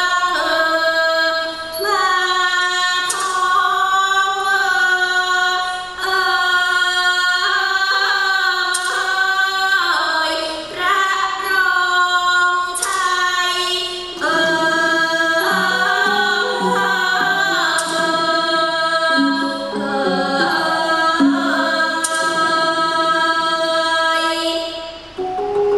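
A woman singing Thai classical vocal music for the dance: a slow, melismatic line of long held notes that bend and waver in pitch. Lower accompanying notes join about halfway through.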